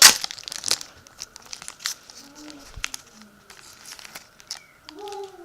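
Foil booster-pack wrapper crinkling and rustling as cards are handled, loudest in the first second. A kitten gives a short mew near the end.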